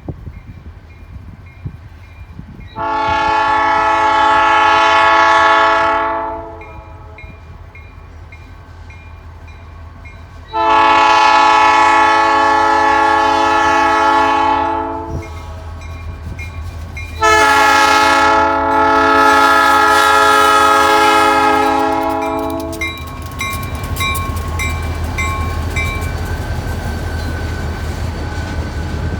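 A diesel freight locomotive's air horn sounds three long blasts for a grade crossing, with a crossing signal bell ringing rapidly underneath. After the last blast, the low rumble of the heavy train rolling through takes over.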